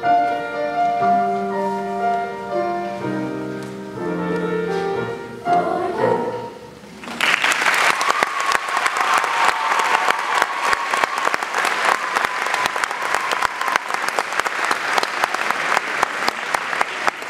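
Children's choir singing the final held notes of a song, which end about six seconds in; then an audience bursts into applause that carries on steadily.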